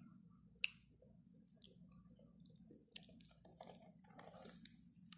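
Faint scattered clicks and soft handling noises over a low room hum, with one sharp click about half a second in and a few more later.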